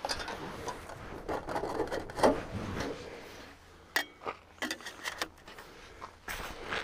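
Soft, irregular rustling and scraping of handling and movement around the tent, with a few sharp clicks about four to five seconds in.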